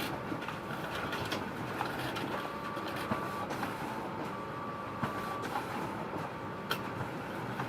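Photocopier running: a steady mechanical whir with scattered sharp clicks, and a faint high tone that sounds twice, from about two and a half to three seconds in and again from about four to five and a half seconds in.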